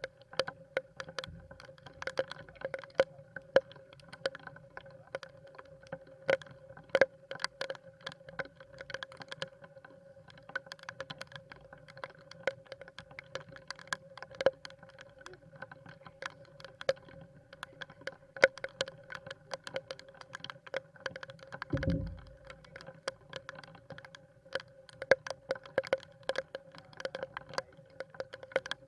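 Irregular sharp taps of raindrops hitting the camera or boat in heavy rain, over a steady hum, with one low thump about 22 seconds in.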